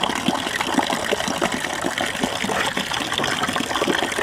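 Water pouring in a steady stream from a stone spout of a traditional stone tap (dhunge dhara) and splashing below.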